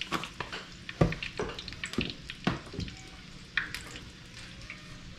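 Hot cooking grease frying, a steady low sizzle with irregular sharp pops and crackles that come thickest in the first three seconds.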